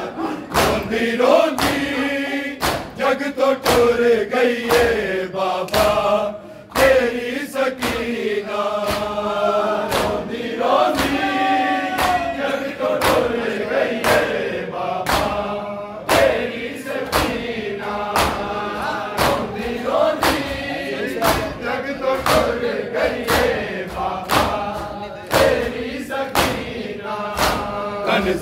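A crowd of male mourners chanting a Punjabi/Urdu noha together, with repeated sharp slaps of hands striking chests (matam) cutting through the singing.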